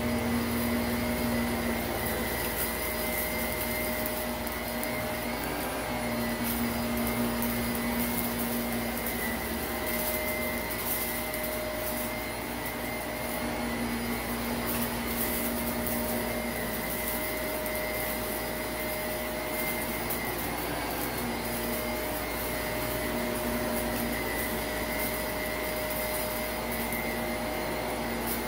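Shark Navigator upright vacuum running steadily while pushed back and forth over a shag rug, its hum coming and going every few seconds with the strokes. Light crackling of small grit being sucked up from the pile.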